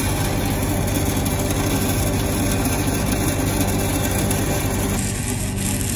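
Stick welding arc crackling and hissing steadily as a cellulose-coated electrode runs the root pass on a bevelled steel pipe joint, over a steady low engine hum. The crackle thins out about five seconds in.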